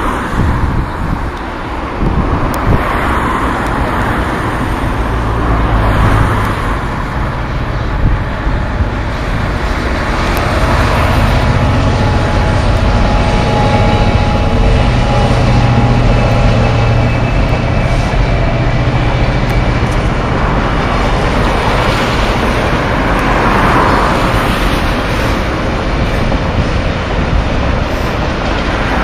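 Direct Rail Services Class 66 diesel locomotive passing with its two-stroke EMD V12 engine running, a steady low drone strongest through the middle. A train of scrap box wagons then rolls by with a continuous rumble.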